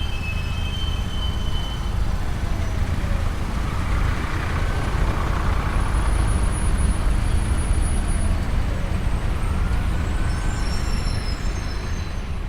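Steady rumble of road traffic with heavy vehicles passing, swelling a little midway, with faint high squeals over it.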